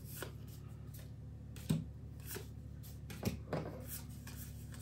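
Trading cards from a freshly opened booster being slid one by one through the hands: a few soft clicks and rustles, the sharpest about a second and a half in and again about three seconds in.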